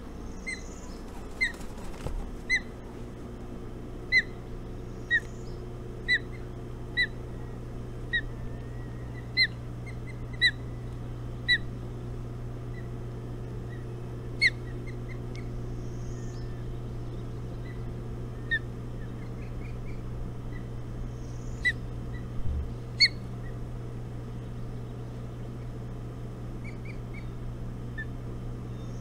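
A bird calling with short, sharp, high notes, about one a second for some ten seconds, then only a few scattered calls, over a steady low hum.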